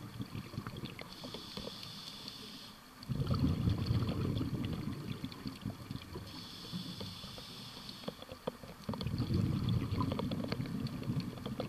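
A scuba diver breathing through a regulator underwater. A hissing inhale comes about a second in and again about six seconds in, each followed by a few seconds of rumbling exhaled bubbles. Scattered faint clicks run through it.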